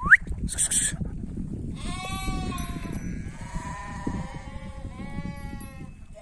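A flock bleating: several long, overlapping bleats in about three waves, over a low rumble.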